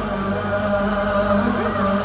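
Music with long held chords and choir-like voices.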